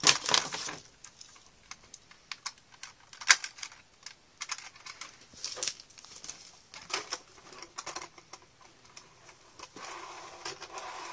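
Plastic model-kit parts being handled and fitted together, giving irregular small clicks and taps, with a louder rattle at the start and a sharp click about three seconds in.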